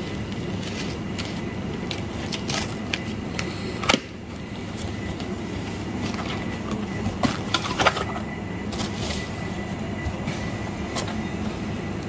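Cardboard shipping box handled and opened by hand: scattered rustles, taps and clicks of cardboard over a steady background hum, with a sharp snap about four seconds in.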